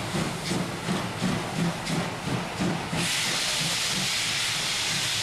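Steam locomotive working hard as it pulls away, exhaust beats coming about three a second. About three seconds in, a steady loud hiss of steam starts suddenly and covers the beats.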